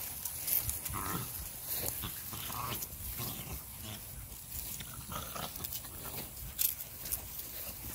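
Small dogs making a few short, soft snuffling noises in the grass, with light scattered clicks.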